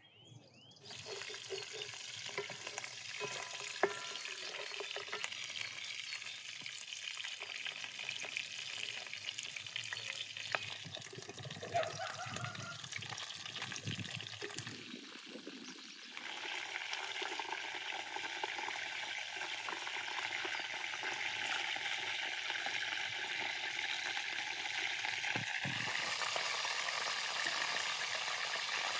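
Chicken pieces frying in a wide metal pan, with a steady sizzle starting about a second in. Cubed potatoes are tipped in from a bowl with soft knocks, then stirred with a wooden spoon, and the sizzle is louder from about halfway through.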